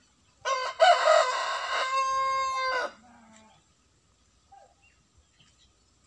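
A rooster crows once, for about two and a half seconds. The crow is rough at the start and ends on a long held note that cuts off cleanly.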